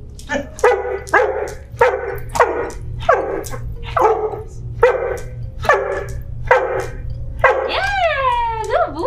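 Black Labrador retriever service dog barking repeatedly in an even rhythm, about eleven barks, one every second or less. This is a trained 'bark for help' alert: the dog keeps barking until someone comes or it is told to stop.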